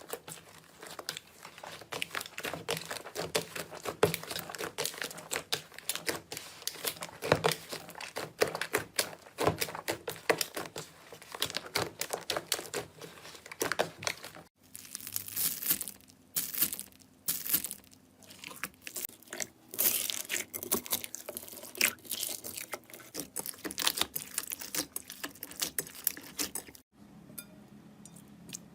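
Slime being squeezed and pressed by hand, making dense crackling and popping clicks. The crackling breaks off abruptly about halfway through and again near the end.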